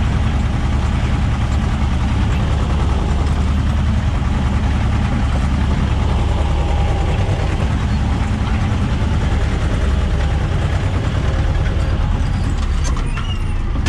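Diesel engine of an Ursus tractor running steadily, heard from inside the cab as it pulls a potato ridger along the rows.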